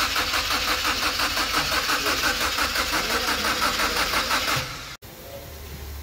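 A BMW 1 Series (E87) engine is cranked over by its starter motor in a fast, even pulsing rhythm for about four and a half seconds without catching, then the cranking stops suddenly. The crash-damaged car won't start.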